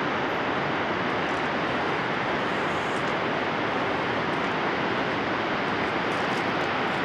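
Steady rushing of the Yellowstone River's white water in the canyon, an even noise that holds at one level throughout.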